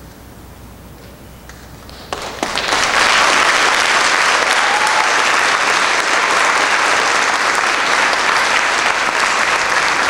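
Audience applauding at the end of a stage play: a few scattered claps, then about two seconds in the applause swells quickly into steady, full clapping.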